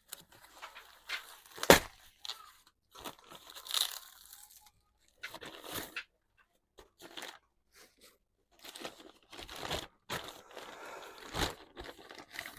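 Irregular handling noises during motorcycle rear-wheel work: scraping, rustling and clicking, with a sharp knock about two seconds in and another near the end.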